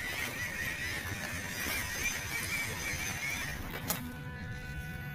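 Electric motor and gearbox of a 1/12-scale MN99 Defender RC crawler whining, the pitch wavering as it works over rocks. A sharp click about four seconds in, after which the whine holds a steadier pitch.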